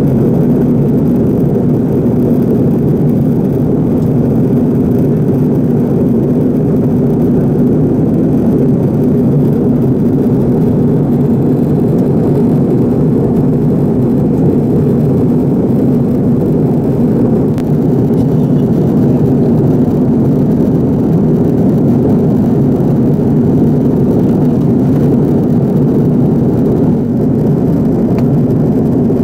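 Steady cabin noise inside an Airbus A330-300 jetliner at cruise: an even, low rumble of engine and airflow noise that does not change.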